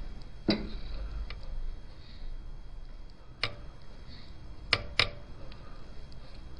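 Sharp metallic clicks and taps of a hand tool against a Gilera Runner scooter's engine crankcase, a handful scattered through, two in quick succession about five seconds in.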